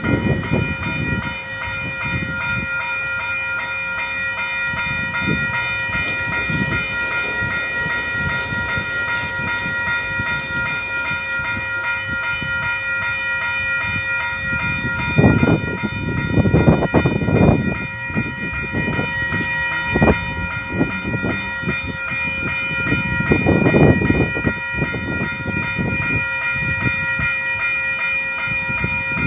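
Railway level crossing warning bell ringing steadily and continuously while the crossing is active, with low rumbling surges a little past halfway and again later.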